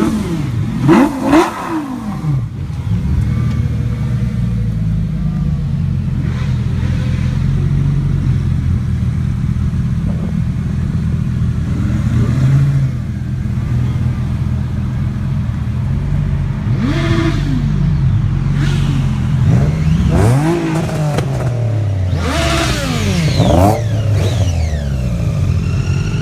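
Several sports car engines idling with a steady deep rumble, blipped in throttle revs that rise and fall. There are two sharp revs about a second in, and a burst of overlapping revs from more than one car near the end.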